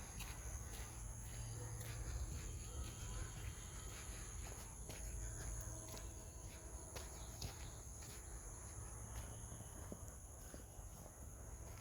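Steady high-pitched insect chorus holding two constant pitches throughout, over a low rumble, with a few faint irregular taps and footsteps.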